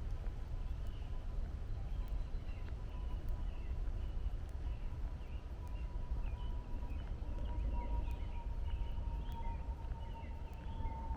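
Small birds chirping in short, scattered calls over a steady low rumble of distant highway traffic. A single thin high tone sounds throughout, slowly falling in pitch and growing louder near the end.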